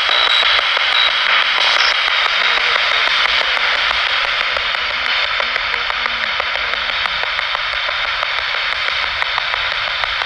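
Spirit box (radio sweeping stations) hissing with steady static through a small speaker, flecked with faint rapid clicks, as it is listened to for a spirit's voice.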